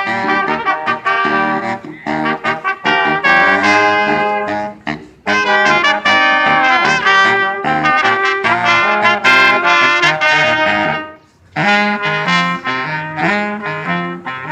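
Live band with a brass horn section playing an instrumental passage of held notes, breaking off briefly about five seconds in and again near eleven seconds.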